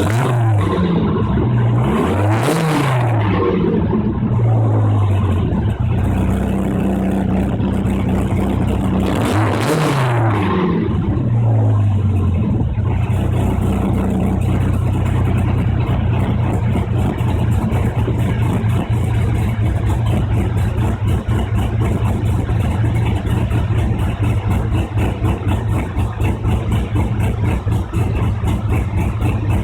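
Dodge Viper GTS V10 exhaust through 3.5-inch Moroso spiral-core mufflers. The engine is blipped in several quick revs in the first few seconds and again about ten seconds in, then settles to a steady, loud idle.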